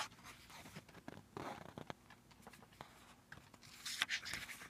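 Pages of a 60-page paperback booklet being flipped through by hand: irregular paper rustling and page flaps, loudest right at the start and again about four seconds in.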